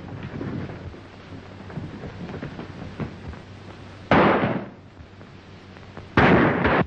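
Two gunshots on an early sound-film track, about two seconds apart. The first comes about four seconds in and the second near the end, each a harsh crack that dies away quickly.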